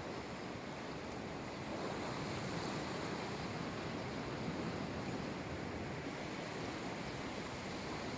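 Sea waves breaking and washing on the shore: a steady rush of surf with no let-up.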